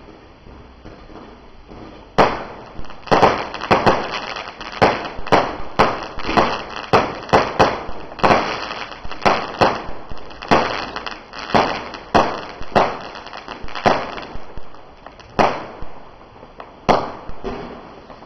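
Low-noise 1.4G consumer fireworks going off: a rapid series of sharp pops and small bursts starting about two seconds in, thinning to a few single pops near the end.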